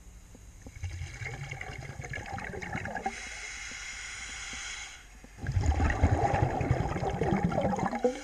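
Bubbling and rushing water heard underwater, with a louder, crackling stretch of bubbles in the second half that stops sharply at the end.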